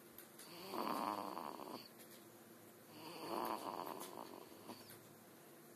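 Soft snoring in slow breaths, two long breaths about two and a half seconds apart, each with a faint high whistle.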